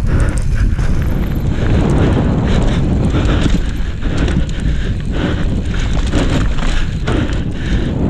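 Cube Stereo 150 full-suspension mountain bike descending a dry, rocky dirt trail: tyres crunching over dirt and stones, with rapid rattles and knocks from the bike over bumps. Wind rumbles on the camera microphone throughout.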